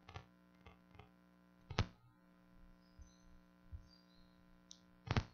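Faint steady electrical hum from a live sound system, broken by several sharp knocks: a few small ones at the start, a louder one about two seconds in, and a quick cluster near the end.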